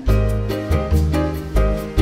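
Background music: an upbeat instrumental track with a bass line and a steady beat, coming in louder right at the start.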